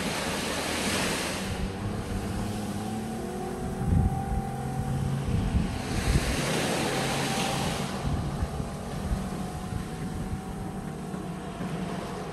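Small waves washing up onto a sandy beach, each wash a hiss, about a second in and again around six to eight seconds in, with gusts of wind buffeting the microphone. Under it, the faint steady drone of a motorboat's outboard engine running offshore.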